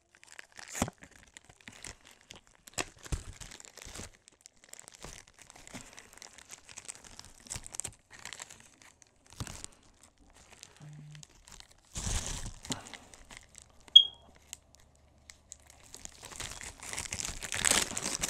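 Clear plastic packaging crinkling and rustling as it is handled, peeled open and pulled off a small plastic training tool, with scattered small clicks. A single sharp, high-pitched click about two-thirds of the way through is the loudest sound.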